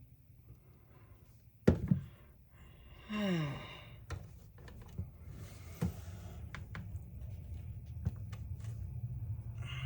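Sharp clicks and light knocks of a tool being handled while working at a stuck screw, the loudest about a second and a half in, with a short sigh that falls in pitch about three seconds in.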